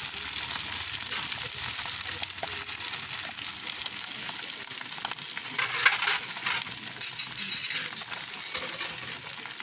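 Ground pork and sliced hotdogs sizzling steadily in a frying pan as spaghetti sauce is added and stirred in with a spatula. A few sharper handling noises come in from about six seconds in.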